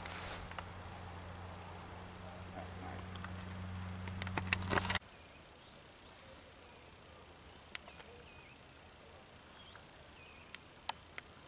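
Insects chirping in a fast, even, high-pitched pulse. Under them a low steady hum cuts off abruptly about five seconds in. Later come a few sharp clicks.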